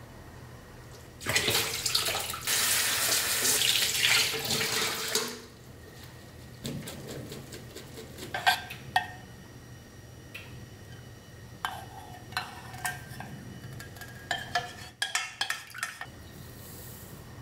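Kitchen tap running into a steel bowl for about four seconds, rinsing salted napa cabbage. Then come scattered knocks and clinks as the cabbage is shaken to drain in a metal colander over a stainless steel bowl.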